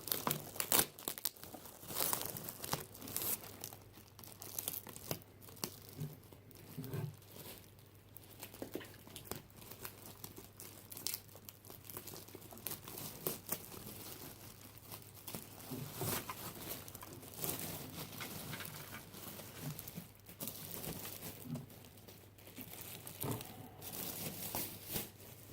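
Packaging being unwrapped from a speaker unit: crinkling and tearing in irregular crackles and rustles.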